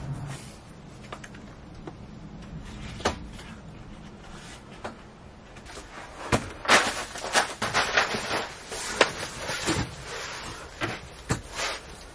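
A folding camp cot being set up and handled: clicks and knocks from its frame and rustling of fabric, a few at first and then a busy run of them through the second half.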